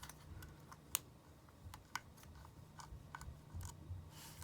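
Faint, scattered clicks and light taps of small repair tools against the insides of an iPhone 5 as the ribbon-cable connectors at the top are unclipped, with a short scrape near the end.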